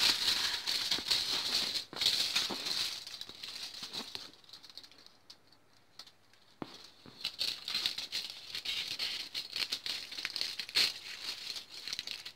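Crumpled aluminium foil crinkling and crackling as it is handled and trimmed with scissors, dying down for a couple of seconds in the middle before picking up again.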